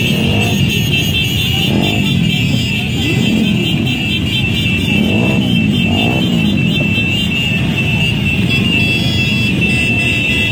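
Many motorcycle engines running as a dense column of motorcycles rolls past, individual bikes revving up and down over the steady drone. A continuous high-pitched tone sits over the engine noise throughout.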